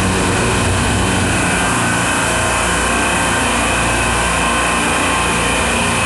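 Supermarket refrigeration rack's compressors running: a loud, steady machinery drone with a low hum and a faint high whine.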